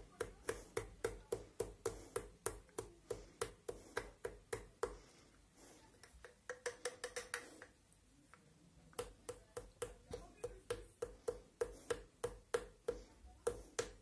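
Fingertip tapping an upturned glass vitamin E ampoule in the neck of a plastic shampoo bottle: a regular run of sharp clicks, about three a second, each with a short ring, broken by two brief pauses near the middle. The tapping shakes the thick, slow-flowing oil out of the ampoule.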